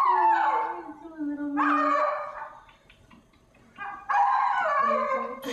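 A puppy howling and whining in three drawn-out calls that fall in pitch, the last starting about four seconds in.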